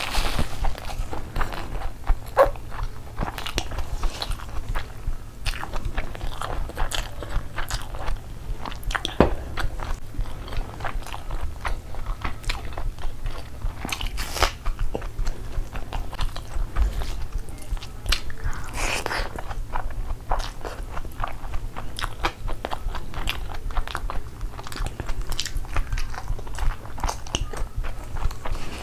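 Close-miked chewing and biting of mouthfuls of chicken curry and Schezwan fried rice eaten by hand, with many quick, irregular wet mouth clicks and smacks.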